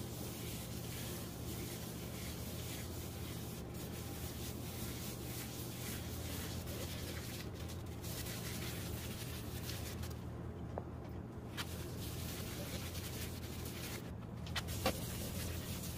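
Wood lathe running with a steady motor hum while a cloth is rubbed against the spinning root-burl vase, a continuous soft rubbing hiss: the finishing stage, with finish being wiped or polished onto the wood.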